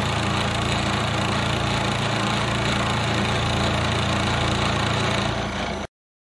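Bridgeport milling machine running with a resharpened end mill cutting aluminum: steady motor hum under the hiss of the flutes cutting. It cuts off suddenly near the end.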